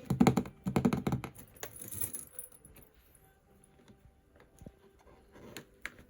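Packaging being handled while unboxing a pair of shoes: a quick run of clicks and taps in the first second or so, a brief rustle about two seconds in, then a few faint taps.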